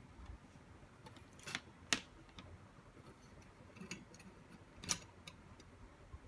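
A few light clicks and taps, the sharpest about two seconds in and another about five seconds in, over faint room noise.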